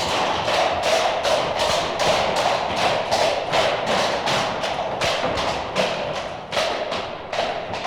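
Horses' hooves clopping on a dirt road: a quick, uneven run of hoofbeats, three or four a second, growing fainter over the last couple of seconds as the horses move off.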